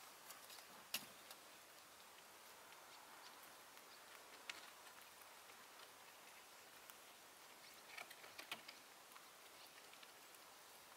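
Near-quiet background with faint, scattered ticks and scuffs of kittens' paws and claws on a concrete floor as they play: a sharp tick about a second in and a small cluster of taps near the end.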